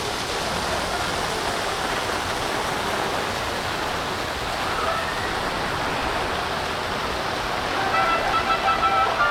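Steady rush of heavy storm rain and running water. Near the end, a pitched sound with several tones comes in over it.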